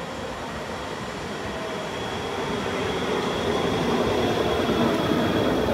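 PKP Intercity Stadler FLIRT (ED160) electric multiple unit running in along the platform. Its sound grows steadily louder as it draws close, with a steady high whine over the running noise.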